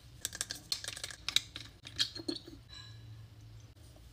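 Quiet clicks and light taps from hands handling skincare and patting it onto the face, coming in a quick, irregular run over the first two and a half seconds.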